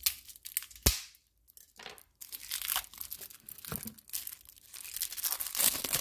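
Clear cellophane shrink-wrap being torn and peeled off a new deck of tarot cards, crinkling. A single sharp tick comes about a second in, then a short pause, then steady crinkling from about two seconds on.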